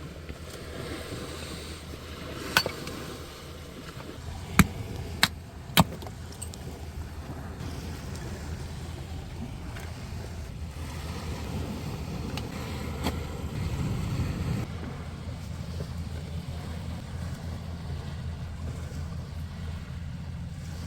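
Steady rush of wind and surf on the beach, with four sharp cracks between about two and six seconds in; the steady noise swells slightly and then drops back suddenly about two-thirds of the way through.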